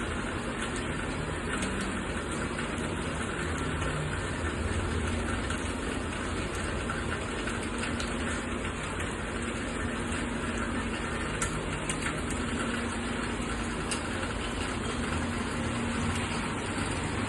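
Steady rain with a low droning hum underneath.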